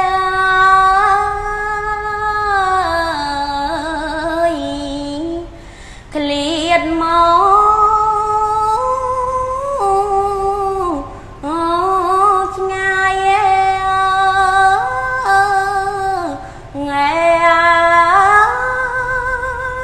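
A woman chanting Khmer smot solo: long held notes that step and slide between pitches with a wavering ornament on them. The line breaks for breath about five, eleven and sixteen seconds in.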